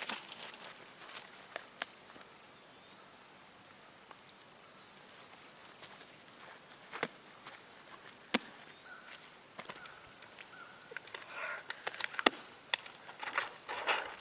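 Insects chirping: a steady high trill under an evenly repeating chirp about two to three times a second, with a few sharp clicks and some rustling near the end.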